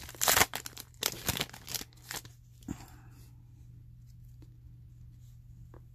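Trading-card pack wrapper crinkling and tearing as it is pulled open, in several quick bursts over about the first two seconds. After that only a faint steady hum remains.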